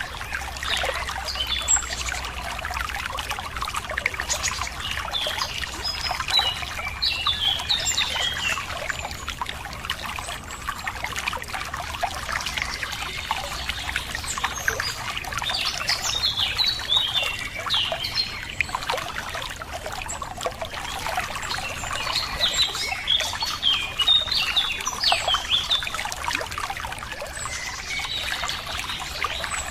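Running water trickling steadily, with small birds chirping and singing in clusters of short notes every several seconds over it.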